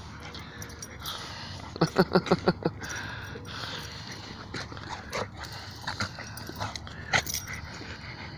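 Dogs play-fighting: a quick run of about six short dog yips about two seconds in, then scattered scuffles and clicks as they tussle.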